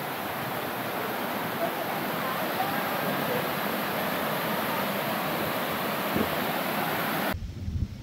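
Steady rush of water pouring over a small waterfall. It cuts off abruptly near the end, leaving a low rumble.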